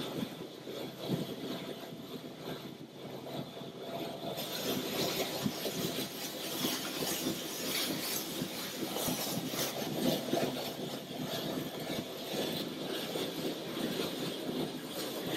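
Steady rushing wind and water noise from an electric water-ski boat underway towing a skier, played back through a hall's loudspeakers.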